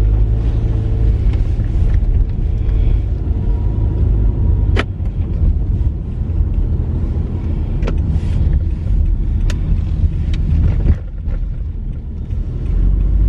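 Car driving along, heard from inside the cabin: a loud, steady low rumble of road and engine noise, with a few sharp clicks.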